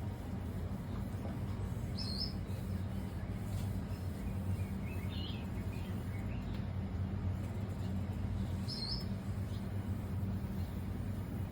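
Two identical short, high bird calls about seven seconds apart, with a few lower chirps between them, over a steady low hum.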